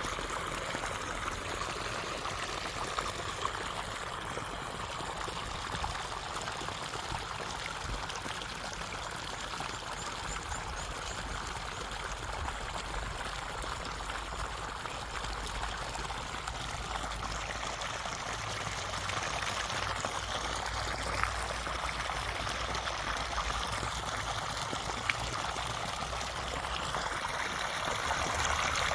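A stream of water running steadily with an even rushing sound.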